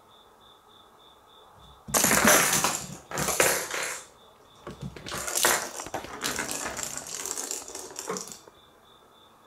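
Cat pawing and scrabbling at a plastic toy ball in the gap beside a cabinet: loud bursts of rattling, clattering and scraping that start about two seconds in and stop a little after eight seconds.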